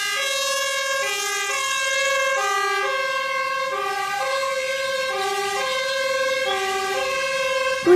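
Fire engine's two-tone siren sounding, switching steadily back and forth between a high and a low note, each held a little over half a second.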